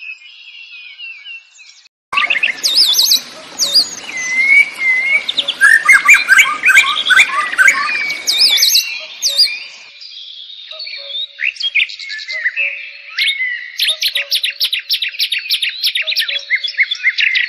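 Birds chirping and trilling, with many short calls overlapping. They become much louder about two seconds in. From about nine seconds the background hiss drops away and rapid repeated trills take over.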